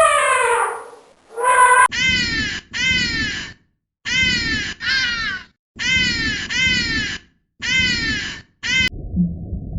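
An animal calling: a run of short, harsh pitched calls, each falling in pitch, mostly in pairs with short gaps between. Just before them, a longer call dies away with a downward slide.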